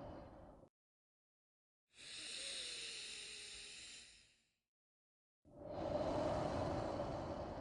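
Slow, deliberate human breathing for a breathing exercise. One long breath fades out just after the start, a thinner, hissier breath runs from about 2 to 4.5 seconds in, and another long, fuller breath begins about 5.5 seconds in, with dead silence between the breaths.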